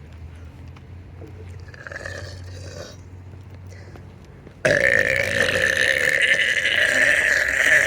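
A person's long, drawn-out burp starts suddenly a little past halfway, loud and held at a steady pitch.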